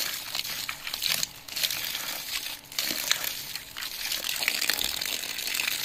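Well water pouring from a hose end and splashing as a person washes his face in it with his hands, with a couple of brief breaks in the splashing.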